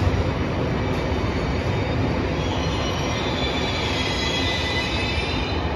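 SBB Intercity train rolling into the platform with a steady rumble of wheels on rails. About halfway through, a high squeal of several pitches sets in as the train slows, and it stops just before the end.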